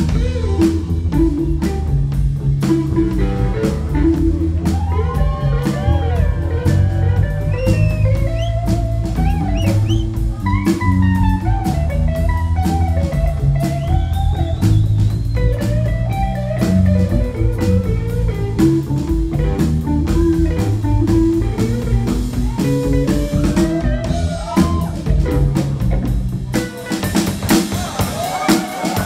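Live blues band playing with drum kit and guitar over a steady beat; near the end the band stops.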